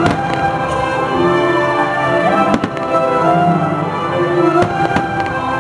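Aerial firework shells bursting with several sharp bangs, two close together about two and a half seconds in and more near the end, over loud, steady show music.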